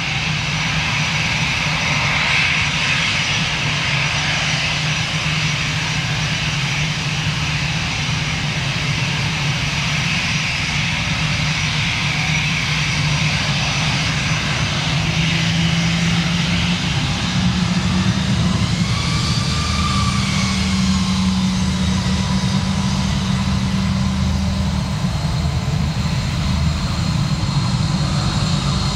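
Airbus A319's twin jet engines at taxi thrust as the airliner rolls slowly onto the runway: a steady low hum with a high whine above it. A little past halfway the hum steps up in pitch and grows slightly louder as the engines spool up a little.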